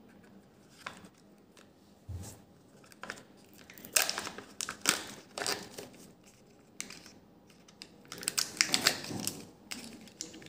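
Foil seal being peeled and torn from a plastic surprise-egg cup, crinkling and crackling in sharp bursts about four seconds in and again near the end, with a soft thump about two seconds in.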